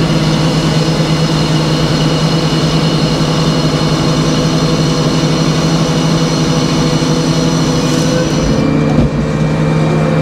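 Large circular sawmill blade sawing through a hard maple log as the carriage feeds it, a steady whine over the mill's constant drone. The whine drops away near the end as the cut finishes, followed by a thump.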